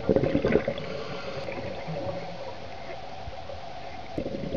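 A scuba diver's exhaled bubbles gurgling underwater, strongest in the first second and again about four seconds in, over a steady faint hum.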